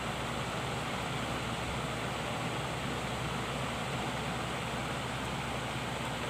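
Electric fan running steadily: an even whooshing of air with a faint low motor hum underneath.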